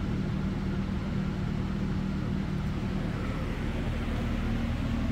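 Steady low machine hum with an even background hiss, like a fan or motor running; no distinct knocks or clicks.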